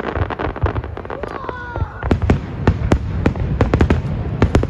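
Aerial firework shells bursting in a barrage: scattered bangs and crackle at first, then from about two seconds in a dense string of booms, four or five a second, over a low rumble.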